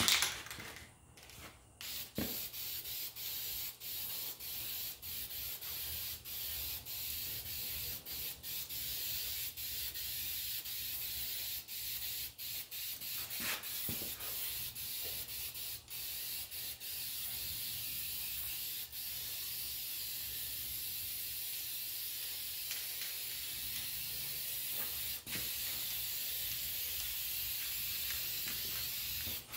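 Aerosol spray can of Alumiblast aluminium-look paint hissing steadily in long passes, with brief breaks between them.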